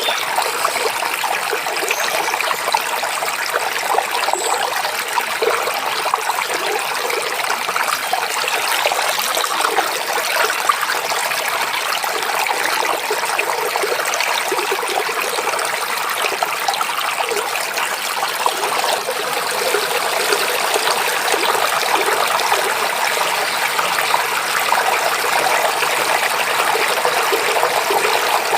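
Shallow forest stream babbling and trickling over rocks, a steady, unbroken rush of water.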